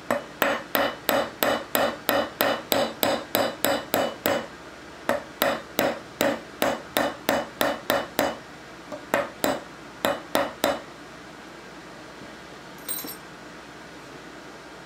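Small hammer tapping a pin punch to drive a pin out of an Ithaca Model 49 rifle's action: sharp metallic taps at a steady rate of about three a second, in three runs with short pauses, stopping about eleven seconds in.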